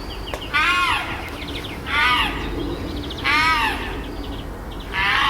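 Chimpanzee calling loudly, about four high hooting screams a little over a second apart, each rising and then falling in pitch.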